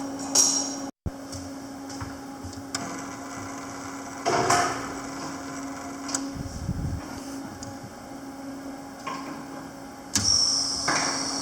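Panasonic MINI160 semi-automatic welder humming steadily, with a few short knocks and bursts of noise: the loudest about four seconds in and another, about a second long, near the end.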